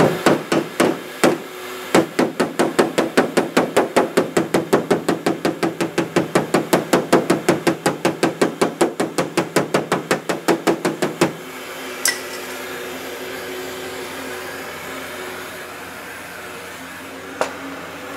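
Hammer tapping on an aluminum car hood to work out a small dent: a few separate blows, then a fast, even run of light taps at about five a second that stops abruptly, followed by two single knocks, over a steady hum.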